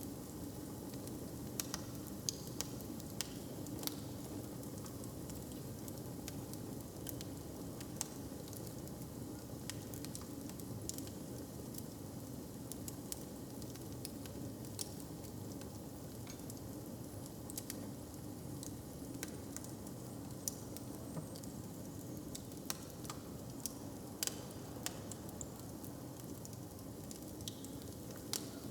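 Fire crackling, with irregular sharp pops over a steady low background.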